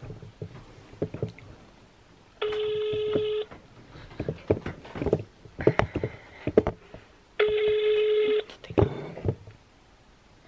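Telephone ringback tone coming through a smartphone's loudspeaker: two steady one-second beeps about five seconds apart, the signal of an outgoing call ringing and not yet answered. Small knocks and clicks from the handled phone in between.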